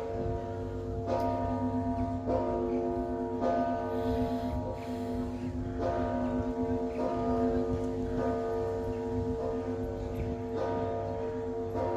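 Russian Orthodox church bells ringing (zvon), a bell struck about once every second over the long, overlapping ring of the bells, with a steady low hum underneath.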